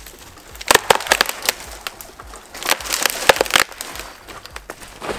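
A partly sawn tree trunk splintering and cracking at its hinge as it is pulled over by a rope, in two runs of sharp cracks, the second and loudest about three seconds in.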